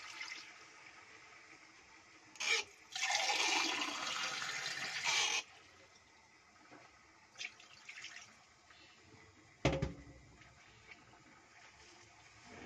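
Water poured from a glass into a hot pot of sautéed chicken, splashing and hissing loudly for about three seconds after a brief first splash. A single sharp knock comes near the end.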